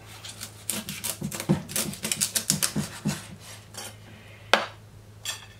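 Chef's knife cutting through a young chicken's backbone on a wooden cutting board: a quick run of small cracking clicks for a couple of seconds, then one sharper knock about four and a half seconds in.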